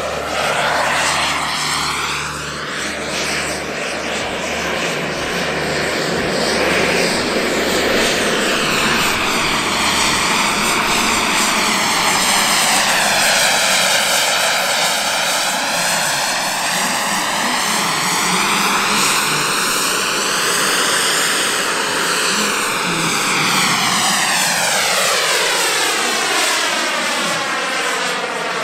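An aircraft flying past overhead: a loud, continuous engine rush whose tone sweeps down and up again several times as it passes.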